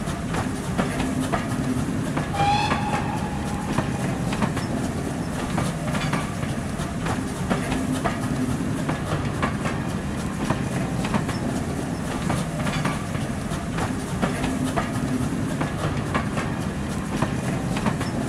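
Passenger train carriages rolling past, a steady rumble with repeated clickety-clack of the wheels over rail joints. A brief high-pitched tone sounds about two and a half seconds in.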